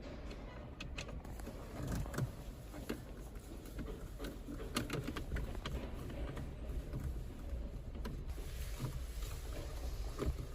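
Scattered light clicks and knocks of hand tools and plastic dashboard parts being handled, over a low steady rumble.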